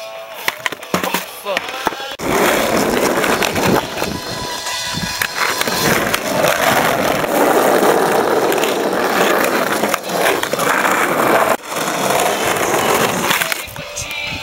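Skateboard wheels rolling over rough concrete, a continuous grinding rumble from about two seconds in until near the end, briefly cut off once shortly before the end.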